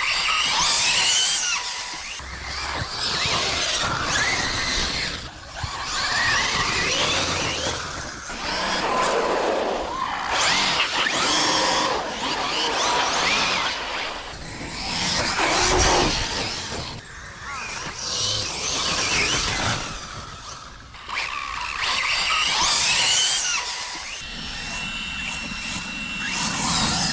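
Radio-controlled car driving in repeated short bursts, its motor whine rising and falling with each run. A steady high whine holds near the end.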